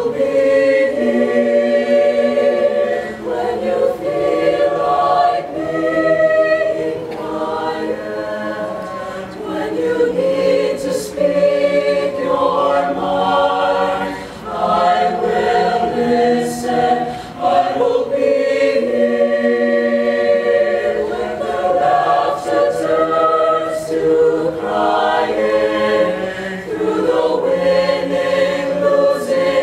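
Background music: a choir singing a slow piece in long held notes.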